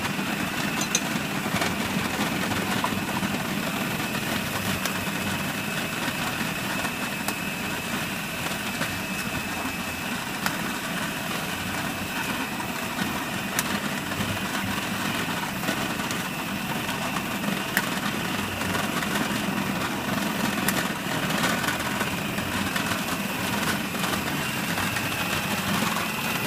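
Food processor motor running steadily, creaming butter and brown sugar for a fruitcake batter.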